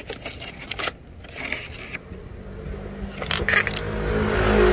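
Plastic drink pouches being picked up and shuffled against one another, with light clicks, scrapes and a crinkle. From about halfway, a low steady hum rises and grows louder.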